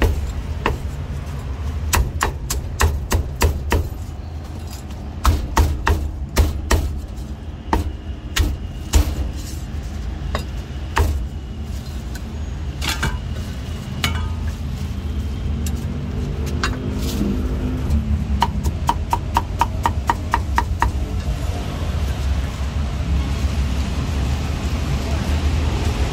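Cleaver chopping on a thick round wooden chopping block: irregular single chops through the first half, then a quick, even run of chops about twenty seconds in. A steady low hum runs underneath.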